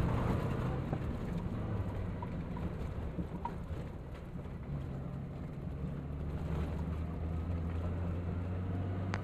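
Maruti Suzuki Gypsy's engine running steadily under way, heard from inside the cabin with road and tyre noise from a dirt track; the engine note shifts about halfway through.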